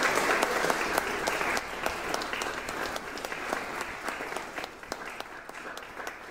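Audience applauding, loudest at the start and gradually dying down, with single claps standing out as it thins near the end.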